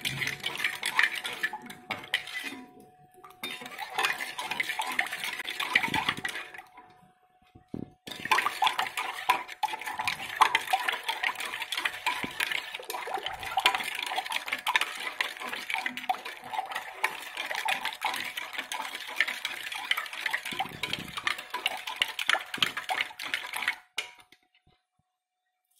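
A spoon stirring sugar into milk in a metal pot, scraping and clinking quickly and continuously against the bottom and sides to dissolve the sugar. The stirring pauses briefly twice and stops near the end.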